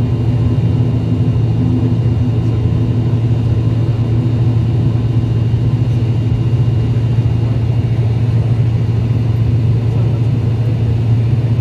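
Turboprop airliner's engines and propellers running, heard from inside the cabin as a loud, steady low drone with a constant hum of noise while the aircraft moves along the runway.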